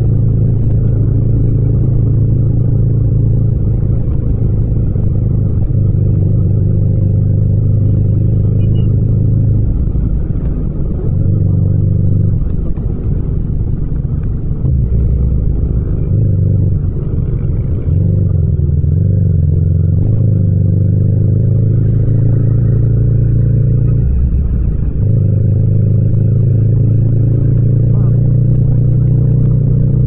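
Yamaha MT-07's parallel-twin engine running under way in third and fourth gear at city speeds, a steady low drone. Between about ten and twenty-five seconds in it dips and changes pitch several times as the throttle is eased and reopened and the gear changes.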